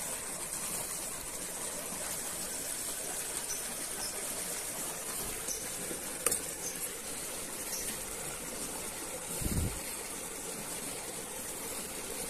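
Steady rushing hiss of flowing stream water, with one sharp click about six seconds in and a brief low thump about nine and a half seconds in.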